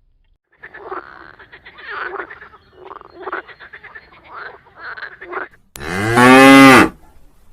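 A run of short, rough, irregular animal calls for about five seconds, then a cow moos once, loudly, for about a second near the end.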